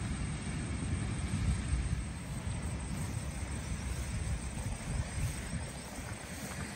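Wind buffeting the microphone, a continuous unsteady low rumble with a faint hiss over it.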